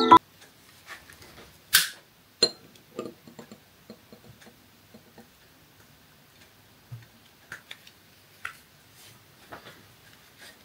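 Scattered light clicks and knocks in a quiet room, the sharpest about two seconds in, after the tail of mallet-percussion music cuts off at the very start.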